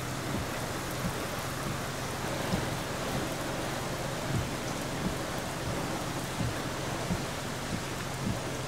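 Steady rain with wind from a passing tropical-storm rainband, with irregular low thumps about once a second.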